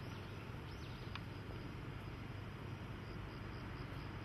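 Steady, faint outdoor background rumble, mostly low in pitch, with faint high chirps in the first second.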